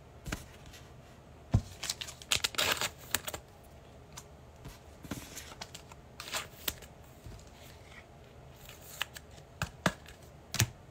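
Hands handling trading card packs and cards: foil card-pack wrappers tearing and crinkling and cards sliding and tapping. The result is scattered light clicks, with a longer rustle about two to three seconds in.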